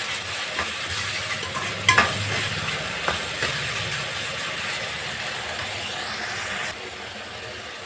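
Small onions and tomatoes sizzling in hot oil in a metal kadai while being stirred with a perforated metal ladle, which scrapes the pan and knocks against it a couple of times. The sizzle goes quieter near the end.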